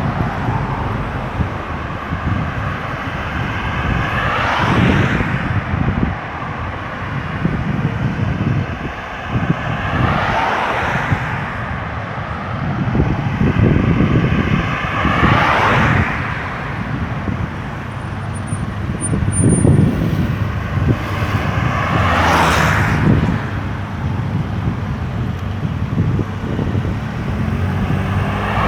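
Highway traffic passing close by: about five vehicles go by a few seconds apart, each swelling and fading with a falling pitch as it passes, over a steady rumble of engines and tyres.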